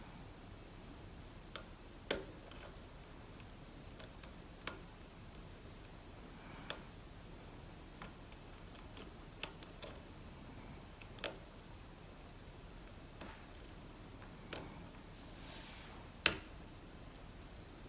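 Lock pick and tension wrench working the pins of an Assa Abloy Arrow lock: scattered sharp metallic clicks at irregular intervals, the loudest about two seconds in and about two seconds before the end.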